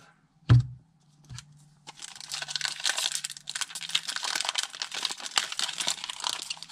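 A single thump about half a second in. From about two seconds in, the continuous crinkling of a foil Pokémon TCG booster pack wrapper being handled and opened.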